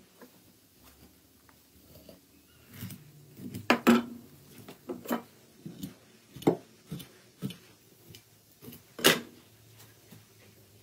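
Knocks and taps of a large raw fish being handled on a wooden cutting board, about eight sharp separate hits, the loudest two close together about four seconds in and another near the end.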